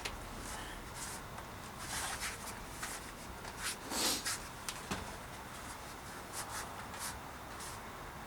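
Bicycle tyre bead being pushed over the rim by hand, a string of irregular rubbing and scuffing sounds of rubber on the rim, the loudest about four seconds in.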